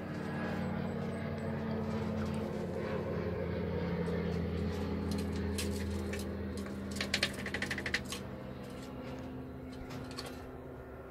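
Swinhoe's striped squirrel scrabbling inside a small wooden nest box while stashing nuts: a quick run of sharp clicks and scratches about seven seconds in, over a steady low hum.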